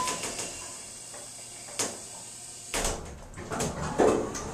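Otis elevator's sliding doors working: a click, then the door mechanism rumbling with knocks and a thud from about three seconds in.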